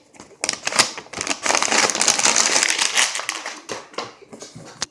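A sheet of paper being crumpled and rustled, a dense crackle with many sharp clicks, loudest in the middle and dying away about four seconds in.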